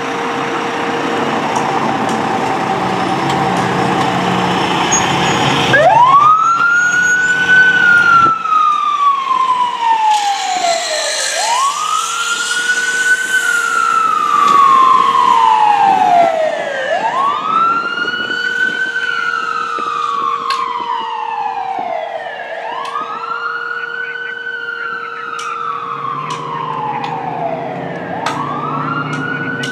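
Seagrave fire engine pulling out with its engine running, then its siren wailing from about six seconds in: five slow wails, each rising quickly and then falling slowly, about every five and a half seconds.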